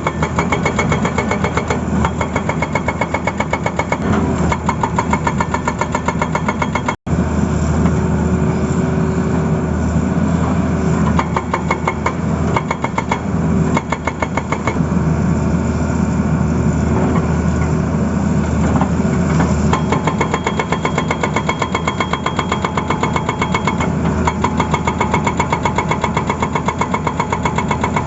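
Tata Hitachi excavator's diesel engine running steadily with a fast, even pulsing beat, cut by a momentary break about seven seconds in.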